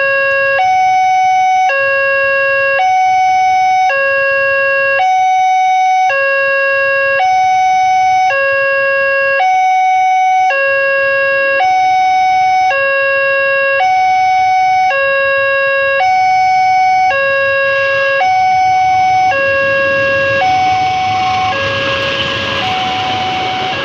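Railway level-crossing warning alarm sounding through its loudspeaker, an electronic two-tone signal that alternates between a lower and a higher tone about once a second. In the last few seconds the rushing noise of an approaching train swells in beneath it.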